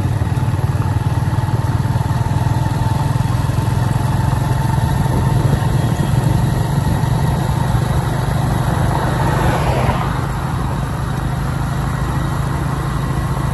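Hero Honda CD100's 97cc single-cylinder four-stroke engine running at a steady, low pace as the motorcycle is ridden. A rushing noise swells about eight seconds in and cuts off suddenly at about ten seconds.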